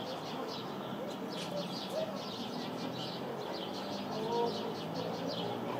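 House sparrows chirping continuously, a dense run of short, repeated chirps.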